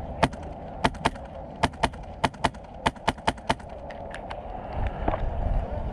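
Airsoft gun firing single shots: about eleven sharp cracks over the first three and a half seconds, many in quick pairs.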